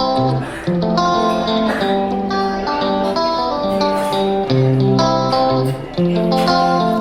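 Background music led by plucked guitar, with a steady bass line.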